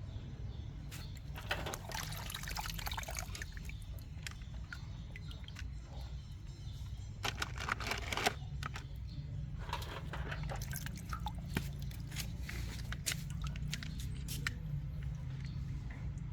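Scattered small clicks and clatters over a steady low hum, busiest in a few clusters.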